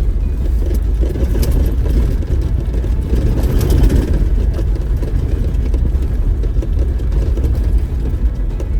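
Off-road vehicle driving slowly over a rough dirt trail: a steady low engine and tyre rumble, with a few brief rattles or knocks about a second and a half in and again near four seconds.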